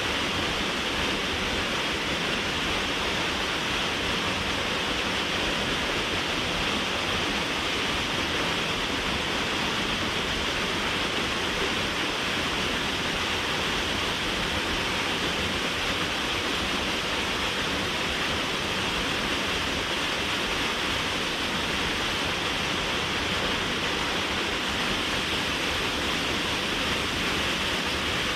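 Waterfall running: a steady, unbroken rush of falling water at an even level throughout.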